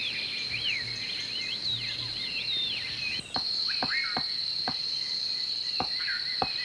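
Steady high insect drone, with curving whistled bird calls over it in the first half. From about halfway a woodpecker knocks at bark in sharp, irregular taps, about two or three a second.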